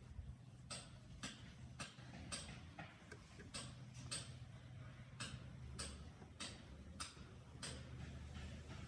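A series of short, sharp ticks at uneven spacing, roughly two a second, over a faint low steady hum.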